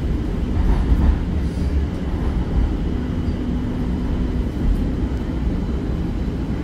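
Light-rail train running, heard from inside the car: a steady low rumble, with a faint steady hum joining about three seconds in.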